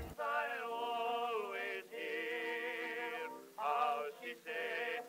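A man singing a slow song in long held notes with vibrato, broken by a few short pauses.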